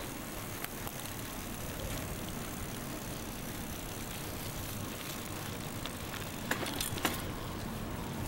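Steady rumbling noise of a bicycle being ridden over rough ground, with a few sharp rattles about six and a half to seven seconds in.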